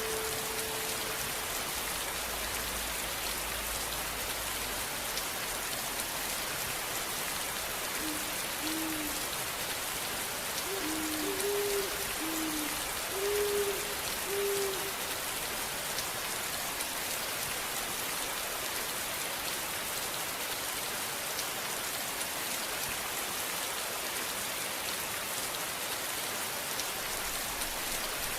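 Steady rain falling, an even dense hiss of drops. About a third of the way in, a short run of soft low notes sounds over it for several seconds.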